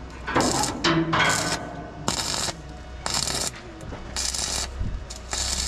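Stick (arc) welder crackling and sizzling at the electrode in short bursts, about one a second, as a broken bracket on a truck chassis is re-welded. A steady low hum runs underneath.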